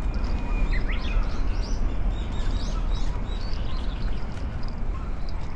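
Small birds chirping in quick high notes and short rising calls, mostly in the first few seconds, over a steady low rumble of wind on the camera microphone.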